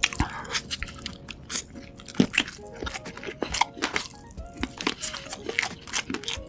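Close-miked crunchy biting and chewing of food, with many quick sharp crunches.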